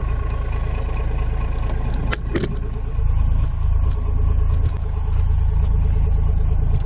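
A vehicle engine running steadily, a low rumble with a faint steady hum. Two sharp knocks come about two seconds in, and the rumble grows a little louder about a second later.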